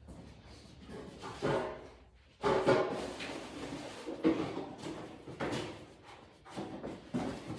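Hand-made 1075 steel knife slicing through cardboard in a series of separate strokes, each a short scraping rip under a second long, the loudest about two and a half seconds in.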